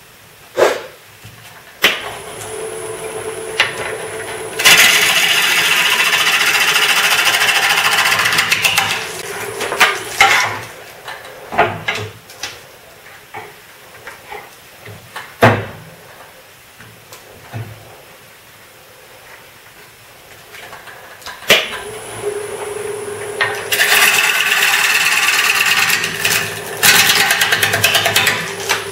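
Gouge roughing out a spinning ash bowl blank on a wood lathe: two long spells of loud, rough, chattering cutting over a steady motor hum. Between them the cutting and hum stop for several seconds, with a few sharp knocks.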